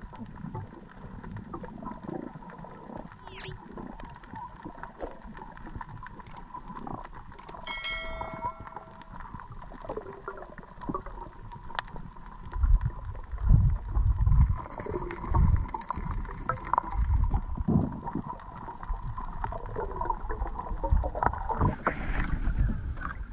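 Underwater sound: muffled gurgling and low rumbles of moving water and bubbles, with scattered clicks and a brief ringing tone about eight seconds in. The low rumbles grow heavier around the middle. Near the end, splashing at the surface takes over as a wet fishing net is hauled into a boat.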